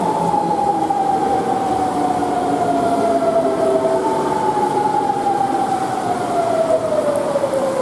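Electric train slowing as it comes into a station, its motor whine falling steadily in pitch as it brakes.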